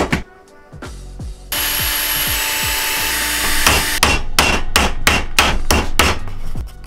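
Hammer tapping on thin pine plywood while a box is put together. There is a steady noise for a couple of seconds, then a quick run of light hammer taps at about four a second.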